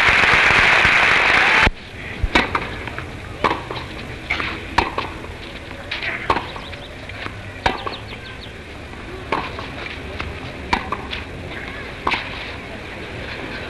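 Crowd applause that cuts off abruptly, then a tennis rally: sharp pocks of the ball struck and bouncing, about one every second or so, over a quiet crowd.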